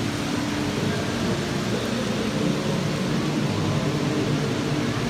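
Steady ambient noise of a large indoor atrium: an even, unbroken hiss with a faint murmur of voices underneath.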